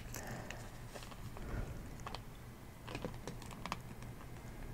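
Fingers handling a small plastic action figure and its display stand: a few faint, scattered light clicks and taps of plastic.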